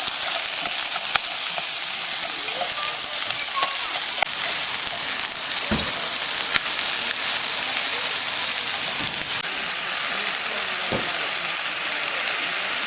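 Food sizzling on a hot grill pan: a steady hiss with a few light crackles scattered through it.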